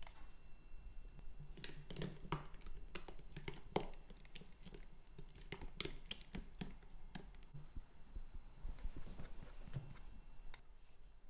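Scattered light clicks and taps of a spoon and plastic paint tubs being handled as thick paint is scooped and stirred.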